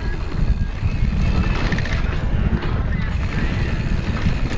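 Mountain bike rolling at speed on packed-dirt singletrack, heard through an action camera: a steady heavy rumble of wind buffeting the microphone over the tyres' crunch and rattle on the trail.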